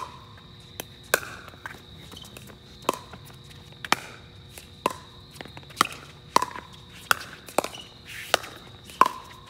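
Pickleball rally: paddles hitting a hollow plastic pickleball back and forth, with about a dozen sharp pops spaced half a second to a second apart. The last one comes just before the end.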